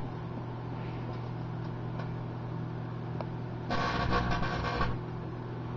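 Microwave oven running with a steady electrical hum. For about a second near the middle a louder buzzing crackle joins it as the glue inside sparks and flares.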